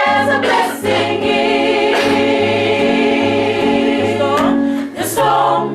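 Gospel choir singing in parts during a rehearsal, with sustained held chords over a moving low line.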